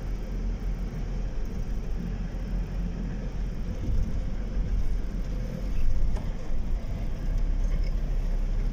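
Car driving slowly, a steady low rumble of engine and tyres heard from inside the vehicle, swelling briefly louder about six seconds in.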